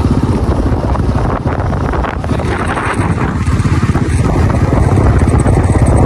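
Motorcycle engine running steadily while riding along, with wind buffeting the microphone; it grows a little louder in the second half.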